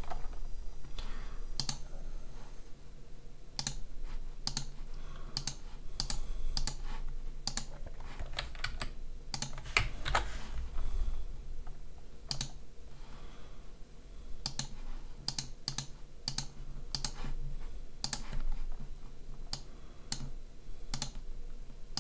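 Scattered sharp clicks of a computer mouse and keyboard, one every half second to second at irregular intervals, over a faint steady low hum.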